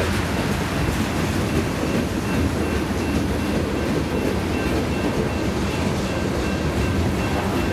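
Freight cars of a Union Pacific manifest train rolling past: a centerbeam flatcar and covered hoppers making a steady rumble and rattle of steel wheels on rail. A faint, steady high-pitched tone rides over it.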